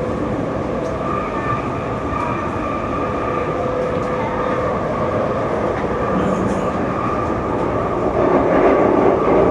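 Alstom MOVIA R151 metro train with SiC-VVVF traction running, heard from inside the carriage. A steady rumble carries steady whining tones, and it grows a little louder over the last second or two.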